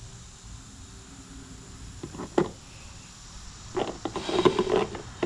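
Handling noise from a plastic motor-oil bottle, most likely being taken out of the engine's filler neck and set down: a couple of sharp knocks about two seconds in, then a clattering run of hollow knocks and rattles near the end.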